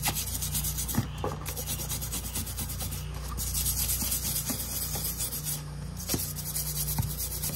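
Rapid back-and-forth scrubbing on a rusty disc-brake bracket from an original 1968 Camaro, held in a tub of liquid, scraping the loosened rust off the metal. There are a few sharp clicks along the way.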